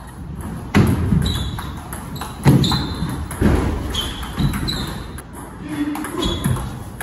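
Table tennis rally: the ball clicks sharply off the bats and the table, about once or twice a second, several hits with a brief high ping.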